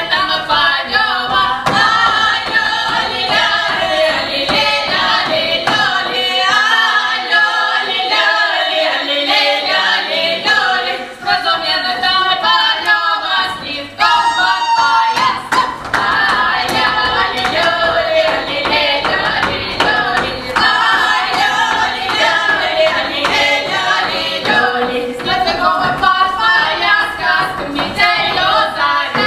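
A folk ensemble of mostly women's voices singing a Voronezh village song a cappella in several parts.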